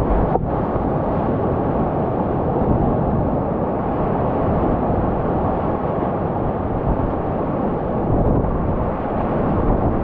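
Whitewater rapids rushing steadily and loudly around a kayak, heard close up from the paddler's camera, with water washing over the bow.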